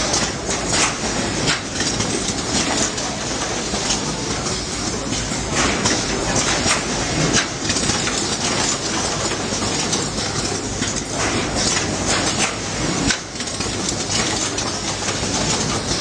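Automatic wire harness processing machines running: a steady, dense factory machinery din with frequent irregular clacks and clicks from the moving parts.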